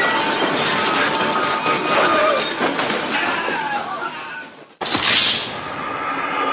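Action-film soundtrack: crashing and shattering over music. The sound drops out briefly about three quarters of the way through, then a sudden loud rushing burst follows.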